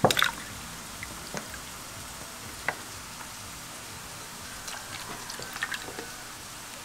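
Milk poured from a carton into a glass and then from the glass into a plastic bowl of egg whites and oil: a short knock right at the start, a few light taps, and soft splashing about five seconds in, over a faint steady hiss.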